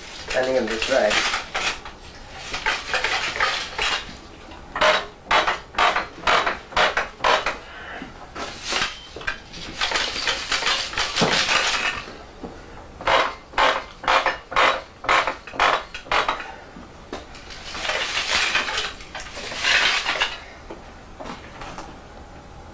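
Metal parts of a weaving loom clinking and rattling as the warp threads are handled, in runs of sharp knocks a few a second with some longer scraping stretches.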